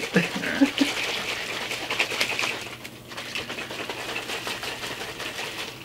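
Plastic shaker cups being shaken hard to mix powdered drink into water: a fast, continuous rattling clatter that eases a little about halfway through.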